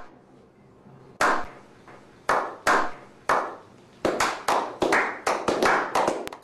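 One person's hand claps, a few slow separate claps and then a quicker run of about four to five a second from about four seconds in, each with a short room echo.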